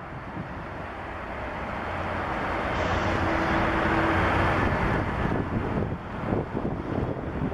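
Boeing twin-engine jet airliner's engines, a rushing noise that builds to its loudest about four seconds in, carrying a brief steady whine, then eases away as the aircraft passes. Wind buffets the microphone at the start and near the end.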